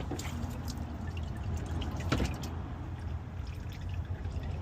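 Engine oil pouring and dripping as the oil filter comes off, with scattered small clicks and a couple of brief knocks, the clearest about two seconds in.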